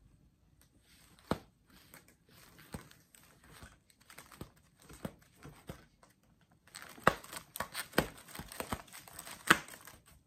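Clear plastic sheet protectors full of trading cards crinkling and snapping as binder pages are turned. Scattered sharp crackles at first, then busier and louder crackling over the last few seconds.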